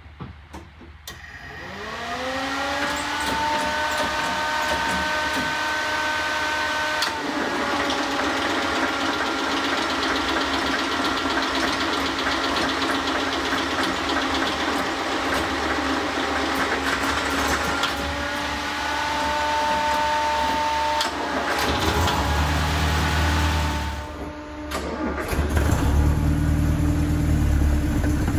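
Land Rover Series III being cold-started: a whine rises about a second in and holds steady, shifting in pitch a few times. In the last few seconds the engine runs with a louder, deeper rumble.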